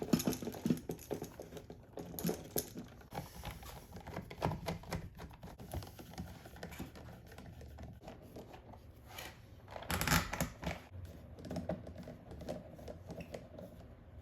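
Rapid small clicks, taps and scrapes of hands working stiff copper building wire while splicing conductors together, with a louder burst of scraping about ten seconds in.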